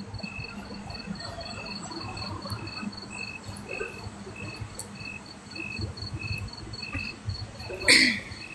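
Crickets chirping in steady, evenly spaced pulses, two insects at different rates and pitches. A brief louder sound with a falling pitch cuts in near the end.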